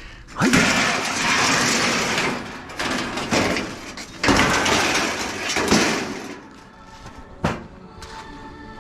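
Scrap metal being dragged and handled: three long stretches of scraping and clattering, then a single sharp knock.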